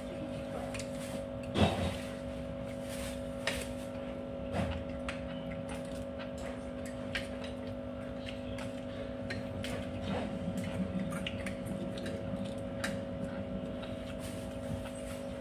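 Spoons and forks clinking and scraping on china plates as two people eat, scattered light clicks with a louder knock about one and a half seconds in and another about four and a half seconds in, over a steady hum.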